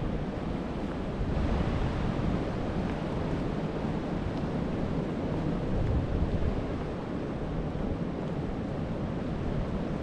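Gusty wind buffeting the microphone, a steady low rumbling rush that swells and eases.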